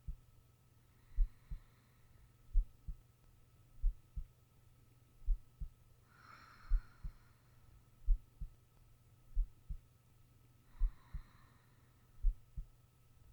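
A sleeping person's heartbeat picked up close: slow, even lub-dub pairs of low thumps, about 45 beats a minute. Soft breaths rise about every five seconds over a faint steady hum.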